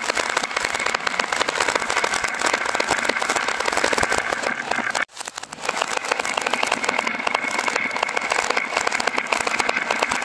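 Many glass marbles rolling down carved wooden zigzag grooves, clicking and clattering against the wood and against each other in a dense, continuous rattle, with a brief break about halfway through.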